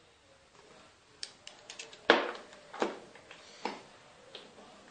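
Small metal parts of a waterjet rotary joint clicking and knocking together as they are fitted by hand: a few light ticks, then three sharper knocks less than a second apart, the first the loudest.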